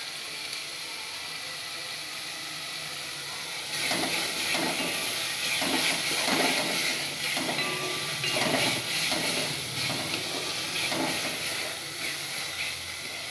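Tomato masala sizzling in a metal pot on a gas flame, the tomatoes already cooked down soft. About four seconds in, a spatula starts stirring and scraping through it in quick irregular strokes, and the sizzle gets louder.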